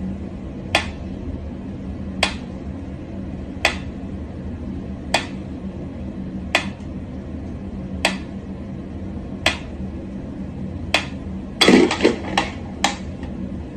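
Mechanical pendulum metronome ticking slowly, one sharp tick about every second and a half, over a steady low hum. Near the end comes a quick flurry of louder knocks and clicks.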